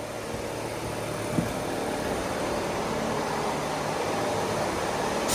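Diesel engine of a 1979 Peterbilt 359 semi truck idling steadily with a low, even hum.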